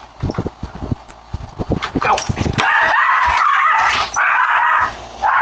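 Dog whining in three long, loud drawn-out cries from about halfway in, after a series of light knocks and taps.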